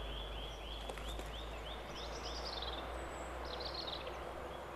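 Songbirds singing in the background: one bird repeats a short arched whistled note about three times a second, and another chimes in with higher, quick descending phrases between about two and four seconds in.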